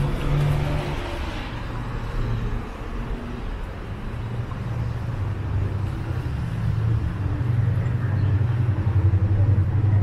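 Street traffic. A passing car's tyre hiss fades in the first second or two, then a low engine rumble grows louder toward the end.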